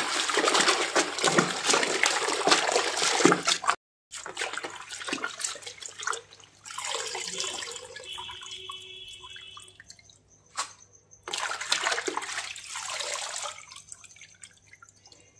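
Hands swishing and splashing green saag leaves in a plastic bucket of water to rinse them. The sloshing is loudest and steady for the first few seconds, breaks off sharply about four seconds in, then comes back in shorter bursts of splashing and dripping as handfuls of leaves are lifted out.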